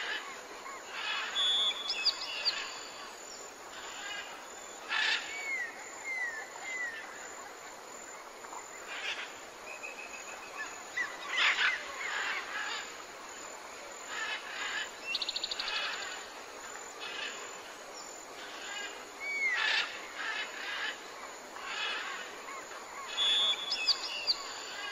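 Birds calling in the open: scattered short chirps, curved whistled notes and brief trills, over a steady background hiss.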